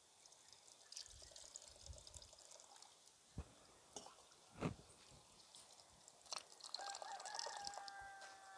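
Coconut milk poured from a bowl through a plastic strainer into a pot, then grated coconut squeezed by hand so the milk trickles and drips through. There are two dull knocks around the middle, the second the loudest sound, and a rooster crows near the end.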